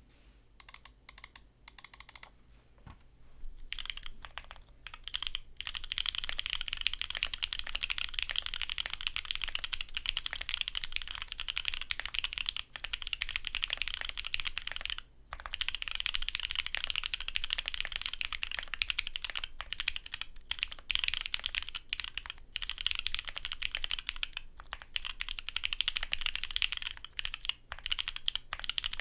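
Custom gasket-mounted Neo 70 mechanical keyboard with lubed Cherry Polished Nixie switches on an FR4 plate being typed on: a few scattered keystrokes at first, then fast, continuous typing from about four seconds in, with a few short pauses.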